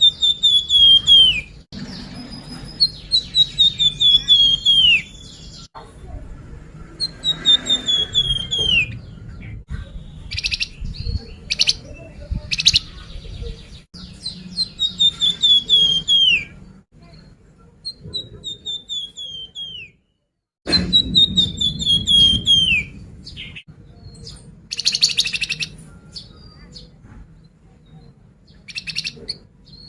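Flamboyan bird song: repeated phrases of rapid notes sliding down in pitch, with short chirps between them and abrupt cuts between sections, played as a lure recording.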